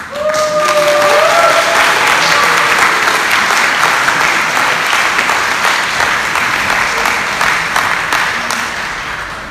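Audience applauding warmly. One voice calls out a long rising whoop in the first couple of seconds, and the clapping slowly tapers off toward the end.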